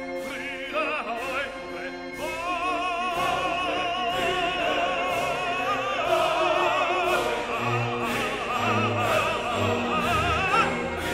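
Background music: an operatic singing voice with heavy vibrato over an orchestral accompaniment and a steady beat, about two strokes a second. The voice comes in strongly about two seconds in.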